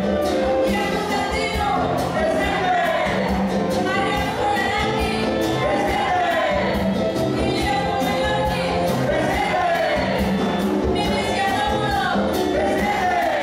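Live music: a large group of voices singing together over acoustic guitars, with a steady beat.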